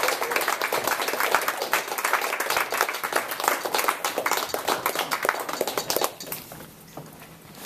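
Audience applauding, dense and even, dying away about six seconds in.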